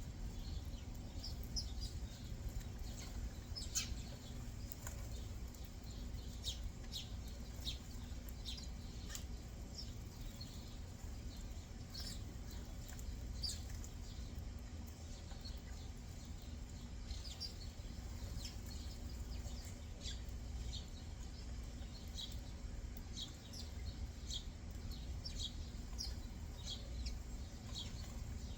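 Small backyard birds chirping: many short, high chirps scattered throughout, some in quick runs, over a low steady rumble.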